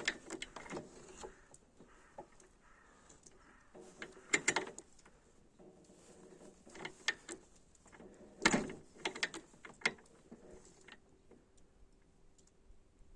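Scattered metal clicks and clunks from hands working on a disassembled IZh Planeta motorcycle engine, moving parts to set the piston position. The loudest knocks fall about four and a half and eight and a half seconds in.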